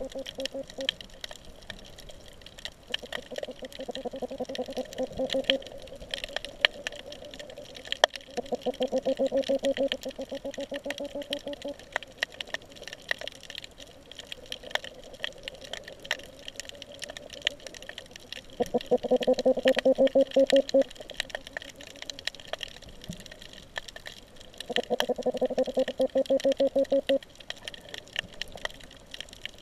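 Underwater fish sounds: four bursts of rapid, low pulsed grunting, each lasting two to three seconds, spaced several seconds apart. A steady crackle of sharp clicks continues throughout.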